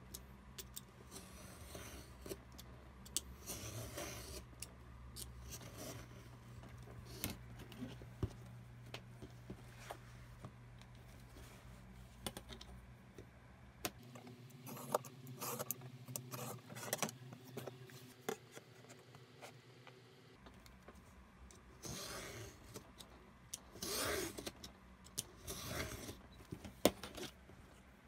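Snap-off utility knife drawn along a steel ruler, slicing through the canvas seam allowance of a sewn pouch on a cutting mat: short scraping cutting strokes with scattered clicks and rattles as the metal ruler and fabric are handled.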